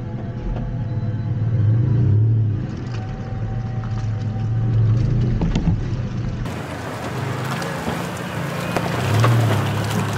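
Pickup truck engine running at low speed while the truck crawls over a rocky dirt track. About six and a half seconds in the sound turns brighter and noisier, with tyres crunching and clicking over rocks and mud.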